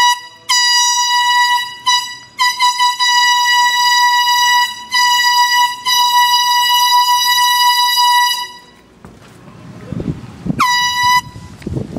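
Air horn sounding one steady high tone in a quick series of loud blasts, mostly one to three seconds long, each starting with a quick drop in pitch. After a pause of about two seconds, one last short blast comes near the end.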